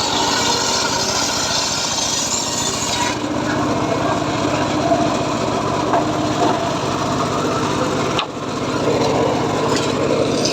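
Homemade circular saw cutting teak, the blade hissing steadily through the wood for about the first three seconds, then running on with a duller sound. The sound dips briefly about eight seconds in.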